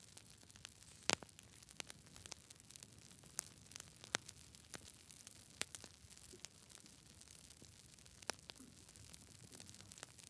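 Wood campfire crackling: irregular sharp pops and snaps over a faint steady hiss, the loudest pop about a second in.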